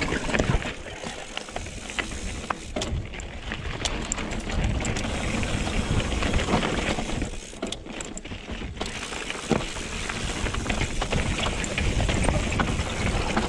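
Trek Remedy 8 full-suspension mountain bike riding over rocky trail: tyres rolling over rock, with frequent knocks and rattles from the bike. Wind rumbles on the chin-mounted helmet camera's microphone.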